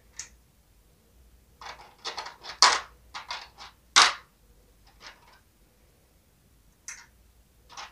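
Small plastic clicks and crinkly taps from miniature Sylvanian Families toy food pieces being handled, set down on toy plates and picked out of a clear plastic packaging tray. The clicks come in a quick cluster, then one sharper click about four seconds in that is the loudest, and a few single ticks after.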